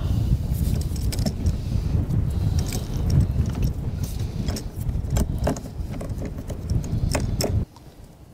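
Wind buffeting the microphone in a loud, gusty rumble, with a run of light metallic clicks and clinks from clamps and hand tools being worked against the hull planking. It all cuts off abruptly near the end.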